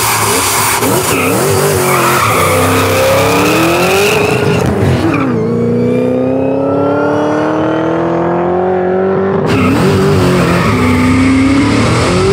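V8 drag cars, a twin-turbo BMW M8 Competition and an LS3-powered Pontiac GTO, accelerating hard from a standstill. Engine pitch climbs and drops back at each of several upshifts. The sound changes abruptly about nine and a half seconds in.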